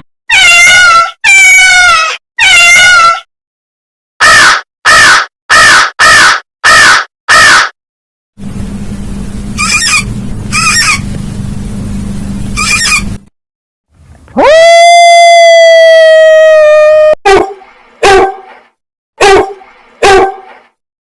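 A string of different farm animal calls, each recording separated by a short gap. In turn come three wavering calls, a quick run of six short calls, a noisier stretch with a few calls over a low hum, one long call that rises and then holds steady, and four short calls near the end.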